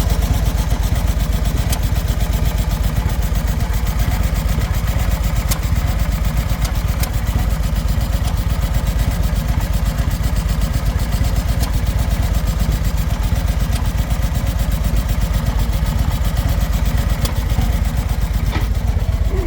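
2011 Victory Cross Country motorcycle's V-twin engine running steadily at idle with an abnormal mechanical noise, which appeared after the engine coughed and stalled on a downshift; the owner fears the engine might be done for.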